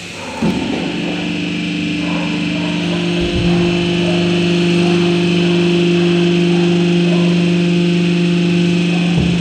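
Hydraulic drum-cutting press: its pump motor starts with a knock about half a second in, then runs with a loud, steady hum that grows fuller a few seconds in as the rams press down on the drum.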